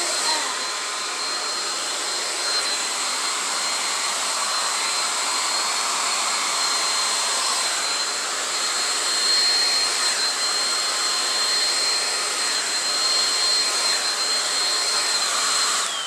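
Andis handheld blow dryer running steadily: a rush of blown air with a steady high whine from its motor.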